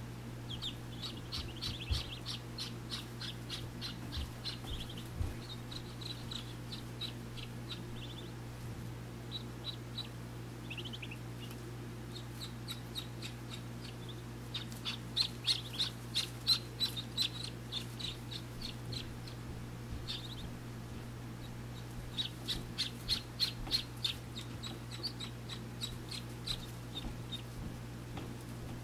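Muscovy ducklings peeping from under a brooding hen, in quick runs of short high chirps that come and go, busiest about halfway through and again later on. A steady low hum runs underneath.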